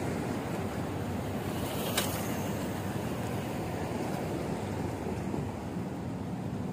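Steady city street noise: the hum of traffic on a busy multi-lane road. A single sharp click about two seconds in.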